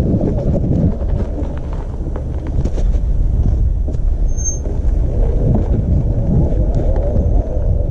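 Wind rumbling on the microphone with scattered knocks and rattles while a Super73 electric bike is ridden over rough ground, and a brief high whistle about halfway through.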